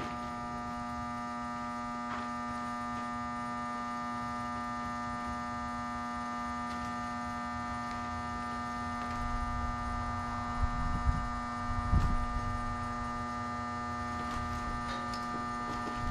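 Welding machine giving a steady electrical hum, a strong buzzing tone with many overtones. A few dull knocks come about ten to twelve seconds in.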